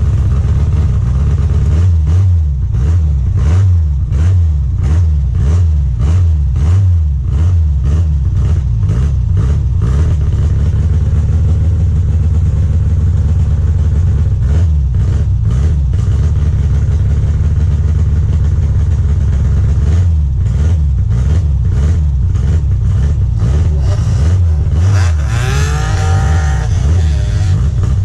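Triumph Spitfire's four-cylinder engine revving hard through an autocross run, with the throttle coming off and back on again and again. A brief tyre squeal comes near the end.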